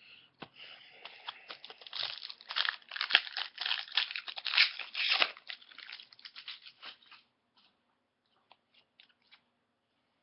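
Foil wrapper of a hockey card pack being torn open and crinkled: a dense run of crackling for about six seconds, then a few light scattered ticks near the end.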